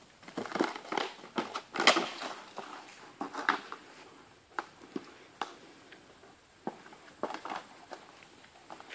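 A flowerpot carried and tossed about in a dog's mouth, knocking and clattering in irregular clicks and knocks, the loudest about two seconds in.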